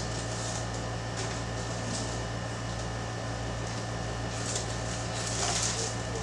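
Steady hum of room air conditioners and fans running, with brief rustling of handled packaging a few times, loudest near the end.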